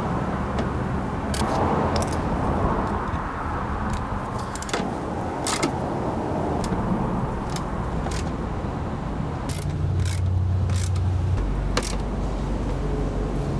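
A car moving, with a steady low rumble and a dozen or so sharp, irregular knocks and clicks spread through it.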